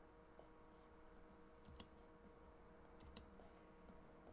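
Near silence with a few faint clicks of someone working a computer, the clearest two about a second and a half apart, over a faint steady electrical hum.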